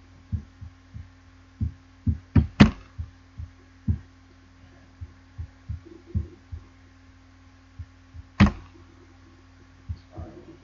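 Computer mouse clicks and handling thumps picked up by the desk microphone: irregular low thumps, with two sharp clicks close together about two and a half seconds in and another near eight and a half seconds, over a steady electrical hum.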